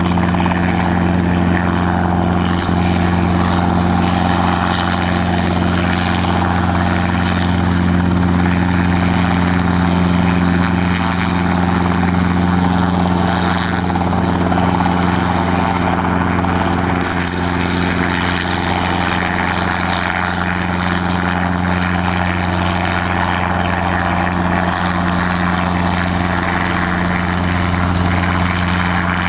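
Robinson R22 helicopter in a low hover: its four-cylinder piston engine and two-blade rotors running at a steady pitch and level.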